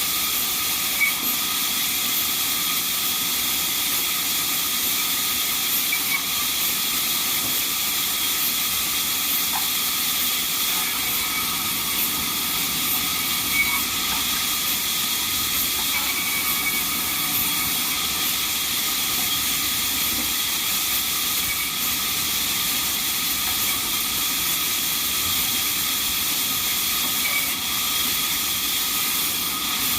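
Sawmill band saw running steadily: an even, hissing noise with a faint steady whine through it.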